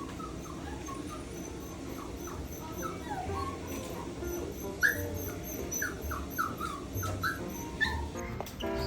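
Small maltipoo dog whining and whimpering in a run of short, high squeaky whines that grow louder and come faster about five seconds in.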